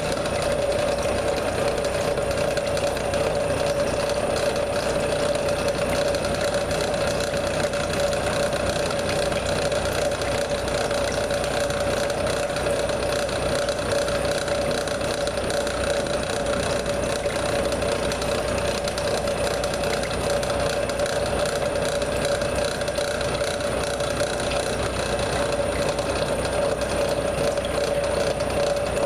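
CNC milling machine hobbing a helical gear with a hob cutter: steady machine running with a constant mid-pitched whine over a dense rattle of cutting.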